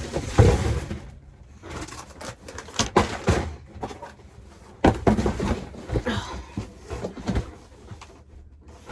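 Handling noises: irregular knocks and thumps with rustling as objects and furniture are moved about, the loudest knocks near the start and about five seconds in.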